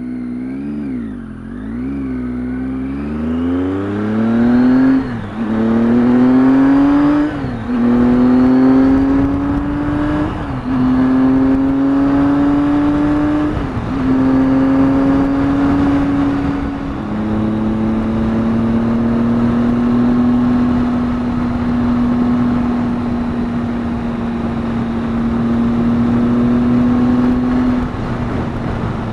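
Triumph Tiger 800 XCx's three-cylinder engine accelerating up through the gears: the engine note climbs and drops sharply at each of about five upshifts, then holds steady at cruising speed.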